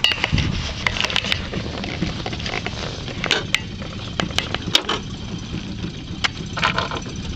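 Steady low rumble aboard a small fishing boat, with scattered sharp knocks and clicks as a caught fish is handled out of a landing net and lifted from the deck.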